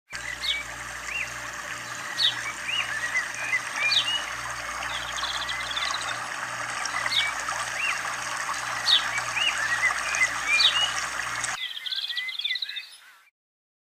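Spring-fed stream running over rocks, a steady rush of water, with small birds chirping repeatedly over it. The water sound cuts off suddenly near the end, leaving faint chirps that die away into silence.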